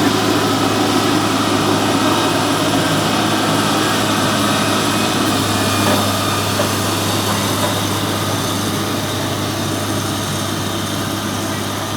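Engine of heavy road-building machinery running steadily with a constant low hum, easing slightly about halfway through.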